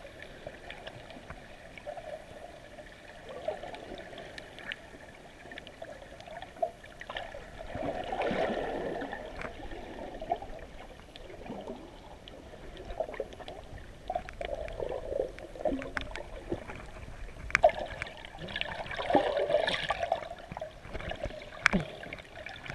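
Muffled water sloshing and gurgling heard by a camera held underwater, with scattered sharp clicks; it swells louder about eight seconds in and again near the end.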